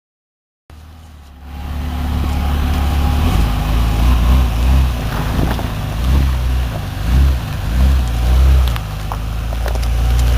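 A 2001 Jeep Grand Cherokee's engine running on the trail. It starts just under a second in, with a deep low rumble that swells and eases several times, and a few sharp clicks near the end.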